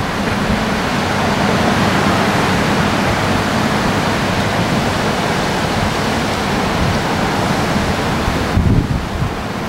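Steady rushing wind noise on a camcorder's microphone, turning gustier with low buffeting near the end.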